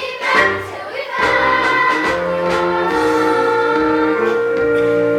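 Voices singing a show tune with instrumental accompaniment, ending on a long held note.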